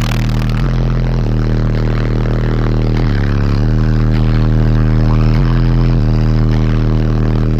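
Bass-heavy music played loud through a car's SPL subwoofer system, deep bass notes changing pitch every second or so.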